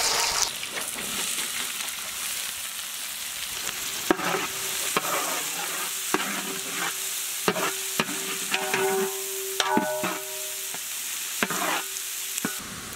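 Chopped onions and curry leaves sizzling in hot oil in a large metal pot, with a burst of sizzle as the onions hit the oil at the start. A perforated metal ladle stirs them, clicking and scraping against the pot.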